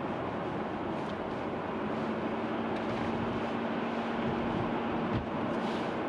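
Car driving, heard from inside the cabin: a steady rumble of engine and road noise. A faint steady hum joins about two seconds in and fades, and there is a single short knock near the end.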